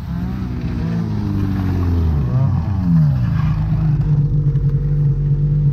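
Ski-Doo Backcountry X-RS snowmobile engine coming down in revs as the sled pulls in, its pitch falling over the first three seconds, then running steadily at low revs for the rest.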